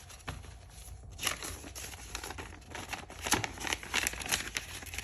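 A stack of paper one-dollar bills being handled, rustling and crinkling in quick, irregular crackles.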